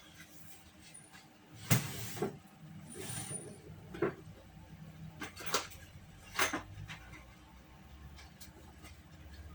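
Objects being handled and rummaged through: a few separate knocks and scrapes, the loudest about two seconds in, and others near four, five and a half and six and a half seconds, then they die away.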